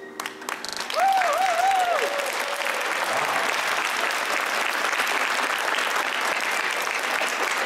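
Audience applauding at the end of a figure skating program: a few scattered claps, then full steady applause from about a second in. A high, wavering cheer rises over the clapping for about a second.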